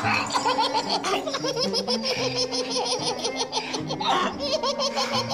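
A group of people laughing hard together, with short repeated bursts of laughter, over background music.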